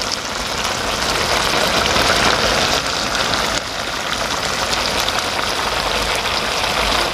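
Spicy braised pork backbone sizzling and bubbling in its thick chili sauce in the pan: a steady crackling hiss that cuts off suddenly at the end.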